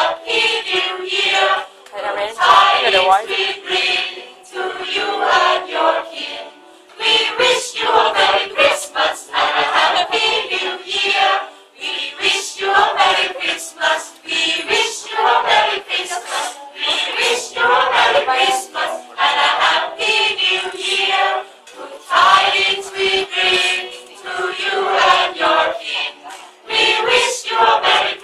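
A small mixed group of men's and women's voices singing a Christmas song together, choir style, in phrases with short breaks between them.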